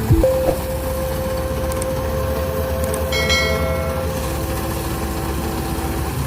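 Rice combine harvester's engine running steadily, with a steady whining tone over its low drone. A brief high ringing sound comes about three seconds in.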